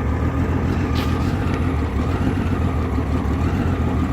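1989 Honda Goldwing GL1500's flat-six engine idling, a steady low running sound. This is the rough idle it has even when warm, which its owner suspects means it is not firing on all cylinders.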